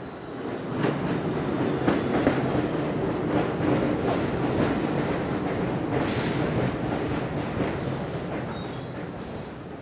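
R62A subway train pulling into an elevated station and running close past, its wheels clattering over rail joints in a steady run of clicks. The rumble swells about a second in and eases off toward the end as the train slows.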